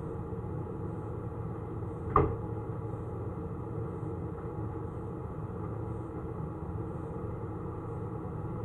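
A steady low machine hum with a few fixed tones, and a single sharp knock about two seconds in.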